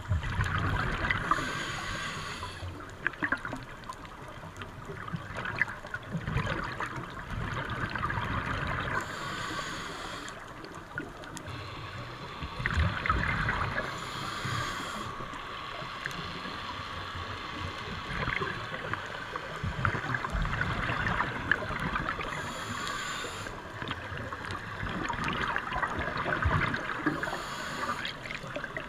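Underwater sound of a scuba dive on a coral reef: a steady rushing water noise with scattered clicks. Every several seconds a diver's exhaled bubbles from a scuba regulator burst out and gurgle.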